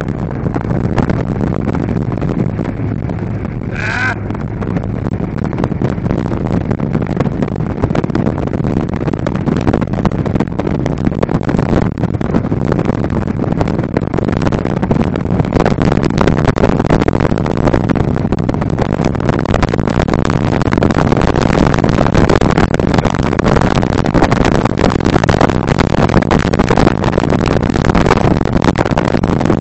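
Speedboat engines running at planing speed with a steady rush of water and wind on the microphone, getting slightly louder toward the end. A brief rising whoop cuts through about four seconds in.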